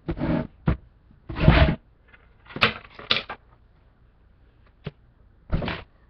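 Heavy drawer unit being lifted and shifted: a string of knocks, bumps and thuds, the loudest and deepest about a second and a half in, with sharp clicks near the middle and end.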